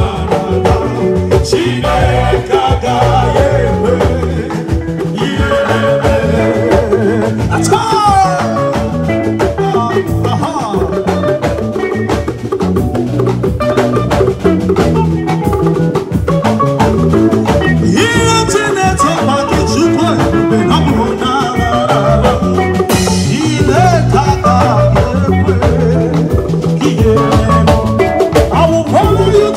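Live band playing, with a drum kit keeping a steady beat under a Yamaha electronic keyboard.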